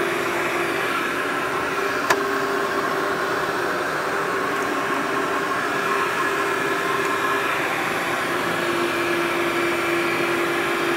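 Upright vacuum cleaner with a clear dust canister running steadily over carpet, a steady whine over its rushing air. A single sharp click about two seconds in.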